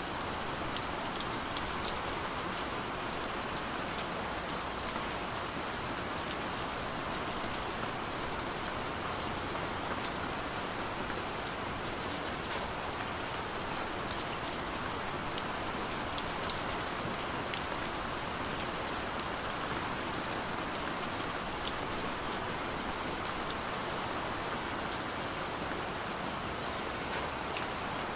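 Steady gentle rain: an even patter of rain falling on a surface, with scattered sharp clicks of individual drops.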